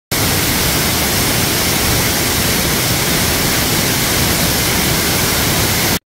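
A 20 m three-tiered mountain waterfall pouring over rock, heard close as a loud, steady, even rush of falling water.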